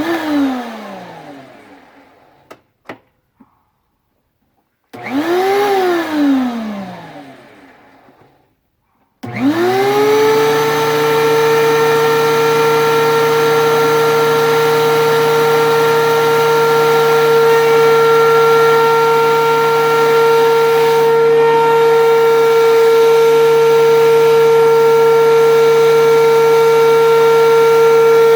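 DeWalt 13-inch thickness planer's motor: it winds down at the start, is briefly switched on and off about five seconds in, then spins up about nine seconds in and runs steadily with a high whine.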